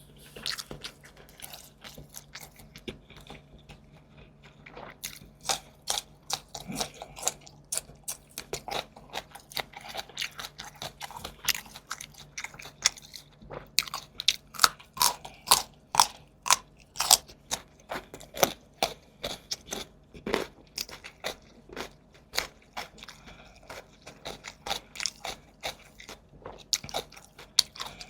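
Close-miked eating: a person chewing and biting food with many sharp crunches in quick succession, sparser for the first few seconds and then dense.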